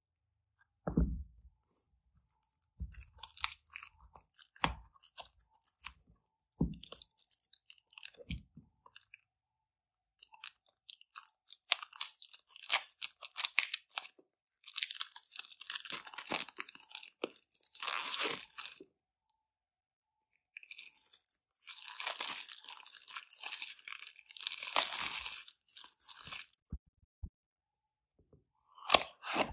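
Clear plastic shrink wrap crinkling and crackling in long bursts as it is peeled and torn off a small cardboard box. Before that come a few dull knocks of the box being handled on a wooden table, and near the end there is a brief loud crackle.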